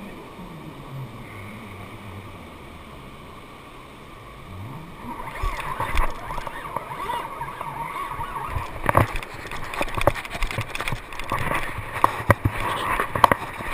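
Shark-fishing reel's drag buzzing as a shark runs and takes line, over the wash of surf. About five seconds in it gets much louder, with several sharp knocks.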